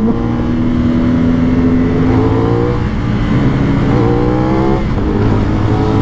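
CF Moto 450NK's parallel-twin engine with 270° crank pulling under hard acceleration, its note climbing in pitch, dropping at an upshift and climbing again, then falling again near the end.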